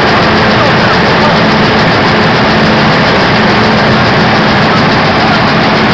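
5XZ-6 gravity separator running while it sorts palm kernels from shells: the fan and vibrating deck make a loud, steady machine noise with a low hum, mixed with the rattle of kernels and shells moving across the deck.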